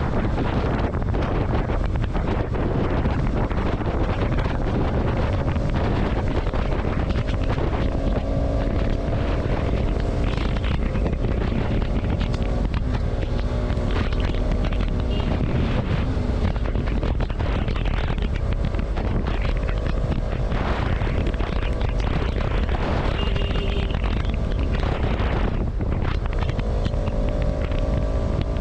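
Heavy wind buffeting on the microphone while riding, with a motorcycle engine running underneath. Its note drifts up and down as the throttle changes.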